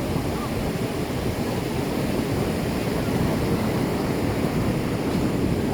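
Ocean surf breaking and washing along the shore as a steady rush, with wind buffeting the microphone.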